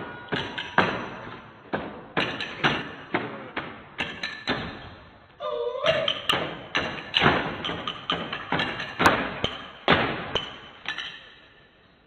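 Stick-and-broom percussion: wooden sticks and a broom knocked against the stage floor in a fast rhythm of sharp cracks and thuds with hall echo. A brief cry cuts in about halfway, and the beating dies away near the end.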